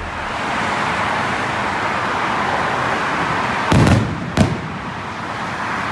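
Aerial firework shells bursting: two loud booms about half a second apart near the middle, over a steady rushing hiss of background noise.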